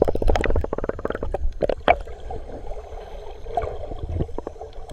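Sea water splashing and gurgling around an action camera going into the ocean, with a quick run of clicking splashes in the first second, then a muffled, steady wash of water.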